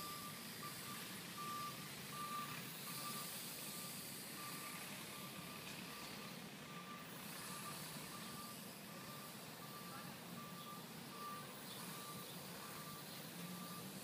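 A steady series of short, thin electronic beeps repeating about once or twice a second over a steady outdoor background hiss.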